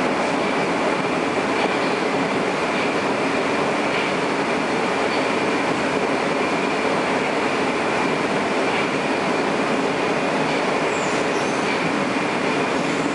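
Moscow Metro 81-760/761 'Oka' subway train running at speed through a tunnel, heard from inside the car: a steady rush and rumble of wheels on rail with a thin, constant high whine and a few faint clicks.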